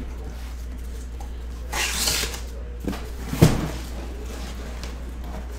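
A taped cardboard shipping case being opened: a rasping rip of tape and cardboard about two seconds in, then a small click and a dull thump about a second later as the flaps and box are handled. A steady low hum runs underneath.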